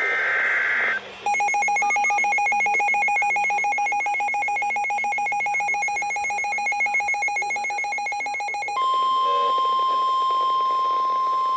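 Emergency Alert System tones from NOAA Weather Radio. The first second is the tail of a SAME header's digital data burst. Then the two-tone EAS attention signal sounds for about seven and a half seconds, and it switches to the steady single-pitch 1050 Hz weather radio warning alarm tone for the last three seconds, announcing a new severe thunderstorm warning.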